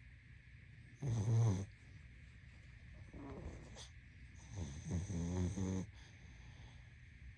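Pug snoring in its sleep: three snores, a short loud one about a second in, a fainter one near the middle, and a longer loud one about two-thirds of the way through.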